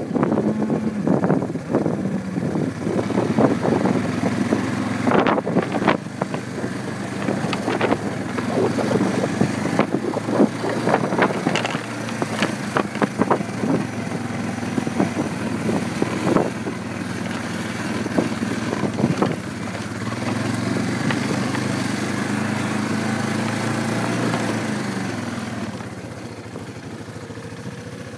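A small vehicle engine running, changing pitch now and then, with frequent clattering knocks over it in the first half. The engine sound falls away near the end.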